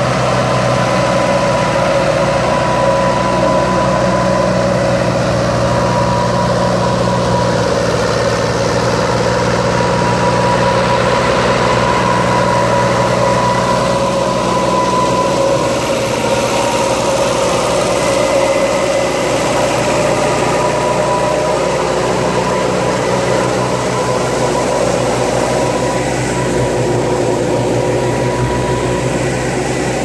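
Old Fiat 640 tractor's diesel engine running steadily, driving a wheat thresher as it threshes wheat. A loud, even machine drone with a steady whine.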